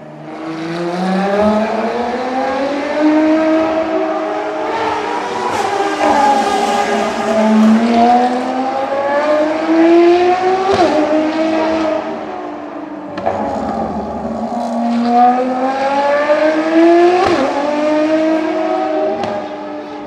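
Ferrari FXX K's V12 engine at full throttle on track, its pitch climbing through each gear and dropping sharply at the upshifts, several times over.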